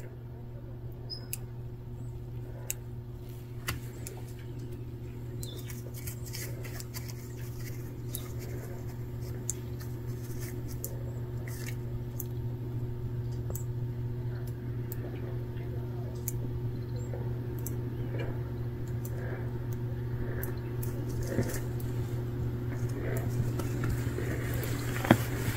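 A steady low hum under soft, scattered clicks and crunches from footsteps in snow.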